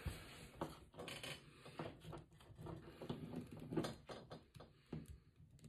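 Faint, irregular clicks and scrapes of hard plastic as a back-bling accessory is pushed and twisted against the peg hole in a plastic action figure's back.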